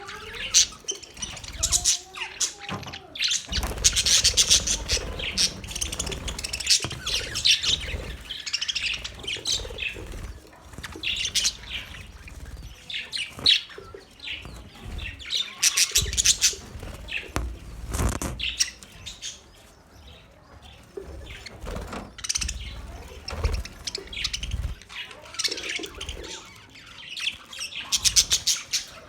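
Budgerigars chirping and chattering, a dense, continuous mix of short high-pitched warbles and squawks from several birds.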